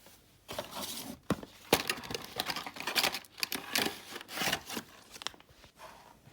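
Crinkling and tearing handling noise, a run of irregular short rustles and clicks that dies away near the end.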